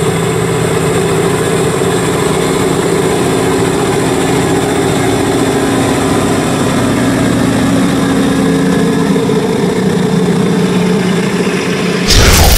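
Rail-grinding train working along the track: its diesel engine running under a steady, loud hiss of the grinding stones on the rails. A louder burst of sound cuts in near the end.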